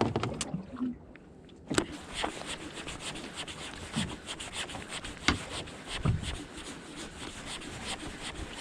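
Irregular rubbing and scraping with scattered sharp knocks, starting about two seconds in after a short quiet spell.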